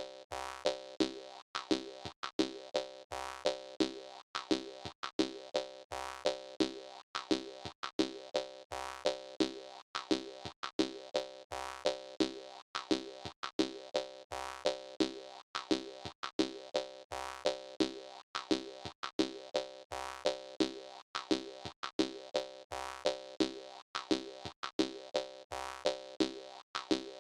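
Jaw harp music: a quick, steady rhythm of twanging plucks over a held drone.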